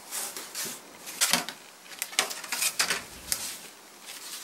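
Thin wood veneer offcuts being handled and flexed: an irregular series of short, crisp rustles and light taps as the sheets are shuffled and held against a wooden edge.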